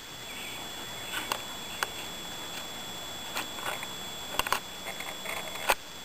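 Camcorder handling and recording noise: a steady hiss with a thin high whine, scattered faint clicks and ticks, and one sharper click near the end.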